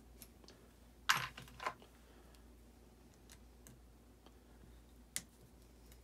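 Small metallic clicks and clinks from loosening and turning the lock ring of a bullet seating die on a reloading press: a quick cluster of clicks about a second in and one sharp click near the end, with a few faint ticks between.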